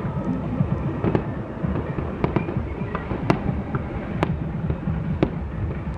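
Fireworks display: a dense rumble of bursts with irregular sharp bangs and crackles, one crack standing out as the loudest about three seconds in.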